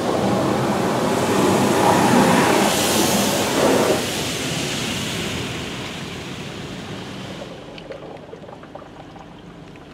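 Water spray from a Pro Navigator in-bay automatic car wash's gantry rushing over the car, heard from inside the cabin. The spray is loudest in the first few seconds, then dies away gradually as the pass ends.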